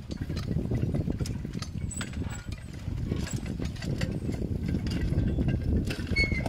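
Horse-drawn riding plow rattling and clanking steadily as a team of draft horses pulls it through the soil, with scattered sharp metallic clicks.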